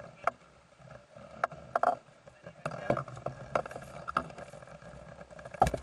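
Handling noise on a hand-held camera: irregular clicks and knocks, with one loud thump near the end, over a faint low hum.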